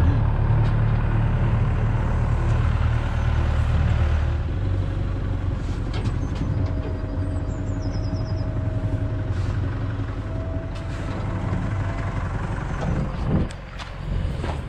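Diesel work-machine engine running steadily, a low rumble that drops away sharply near the end.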